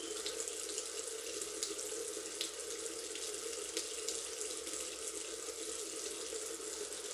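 Water running steadily from a tap into a sink, an even rush with a few faint ticks over it.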